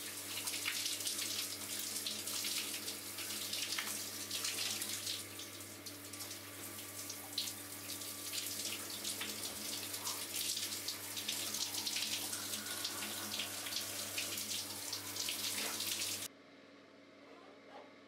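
Shower running: water spraying and splashing on a person and the tiles, over a steady low hum. The water sound stops abruptly about sixteen seconds in, leaving only a faint background.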